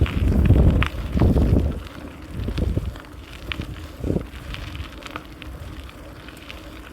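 Wind buffeting the microphone in loud low gusts for the first two or three seconds and once more about four seconds in, then settling to a lighter rush with scattered small clicks.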